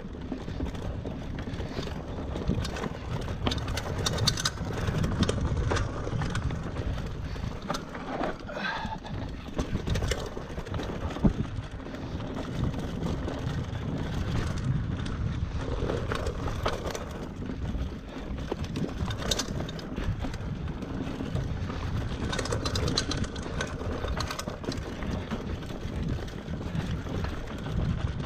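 Mountain bike being ridden over a dirt and rock singletrack: tyres rolling on the trail while the chain and frame rattle and knock over bumps, under a low rumble of wind on the microphone.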